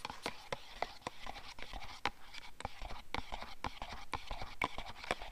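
A paint mixing stick scraping and clicking against the walls of a plastic mixing cup in a quick, irregular run, stirring single-stage paint together with its hardener and reducer.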